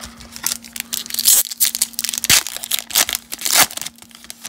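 A baseball card pack's wrapper being torn open and crinkled: a run of sharp rips and crackles.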